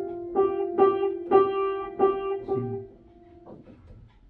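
Music: about five notes struck one after another on a piano-like keyboard instrument, each ringing and fading, dying away about three seconds in.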